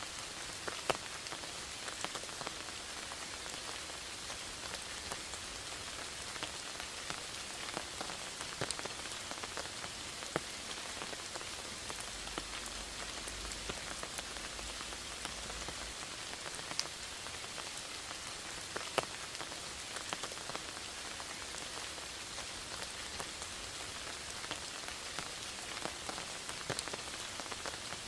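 Steady rain falling in a forest: a dense, even patter of drops, with scattered louder single drips standing out now and then.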